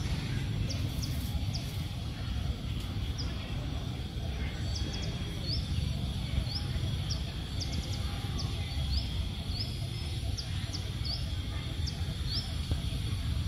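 Short, high bird chirps repeating irregularly, about one or two a second, over a steady low background rumble.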